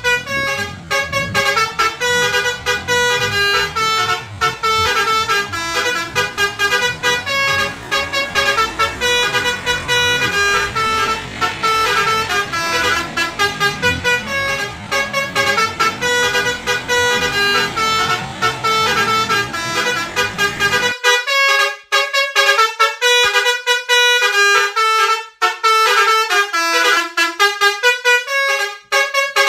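Basuri telolet bus horn, a multi-trumpet musical air horn, playing quick melodies of stepped, changing tones. About 21 seconds in the low rumble underneath stops and only the horn tones remain.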